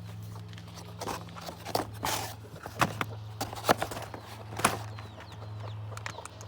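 Footsteps and scuffing, with several sharp knocks or crunches over a few seconds, over a steady low hum.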